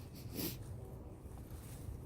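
A dog's single short snort about half a second in, over a steady low rumble.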